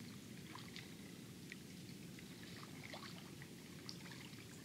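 Faint water sounds from kayak paddling: small drips and trickles with scattered light ticks, over a low steady rumble.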